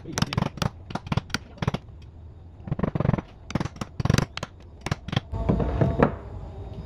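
A hammer tapping a socket to drive new rubber spark-plug tube seals into an engine valve cover: sharp metal taps, several a second, in short runs. About five seconds in a steady low hum starts.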